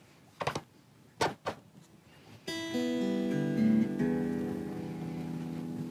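Taylor Solidbody electric guitar's strings: a couple of short muted knocks, then a chord strummed about halfway in and a second chord about a second and a half later that rings out and slowly fades.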